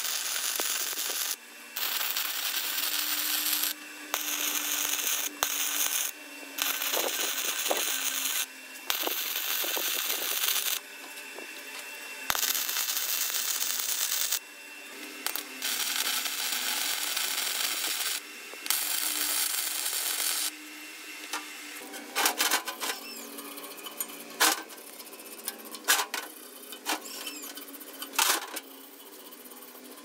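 Wire-feed (MIG) welder arc crackling as it welds laminated steel transformer cores, in about ten bursts of one to three seconds with short gaps between them. In the last third the arc stops, and scattered sharp metallic knocks and scrapes follow as the welds are worked with a hand tool.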